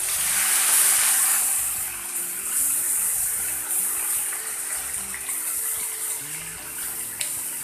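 Raw pork cubes hitting hot coconut oil with garlic and onions in a wok, a loud sizzle that starts suddenly and eases off gradually over the following seconds.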